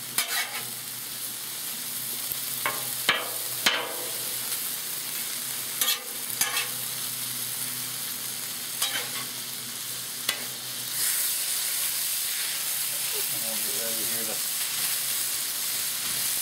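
Sliced chicken sizzling on a hot Blackstone steel flat-top griddle, with a metal spatula clacking sharply against the griddle top now and then as it chops up the chicken. The sizzle grows a little louder about two-thirds of the way through.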